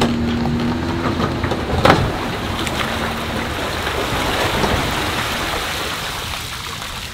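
Water pouring and splashing off an aluminium boat and its trailer as a pickup hauls it up the launch ramp. A steady engine hum is heard in the first second, and a single knock comes about two seconds in.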